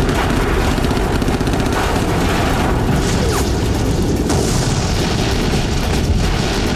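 Battle explosions: a continuous low rumble of blasts with many short sharp cracks mixed in.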